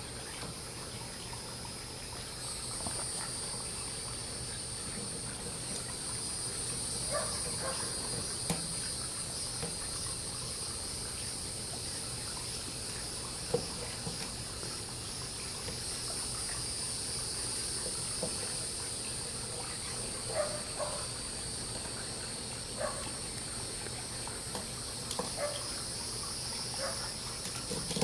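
Steady high-pitched chorus of insects buzzing continuously outdoors, with a few scattered short clicks and chirps over it.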